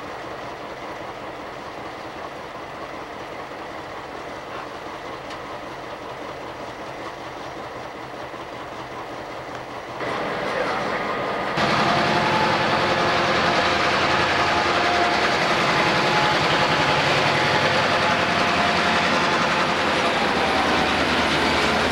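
A quieter, steady outdoor background for about ten seconds, then the much louder steady running of a diesel locomotive heard up close beside its trucks, with a few steady whining tones over the engine noise.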